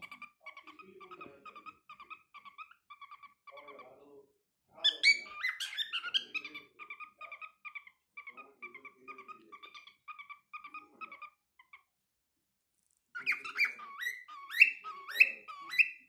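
A six-month-old cockatiel singing: loud whistled phrases about five seconds in and again near the end, with soft, quickly repeated chirps between them.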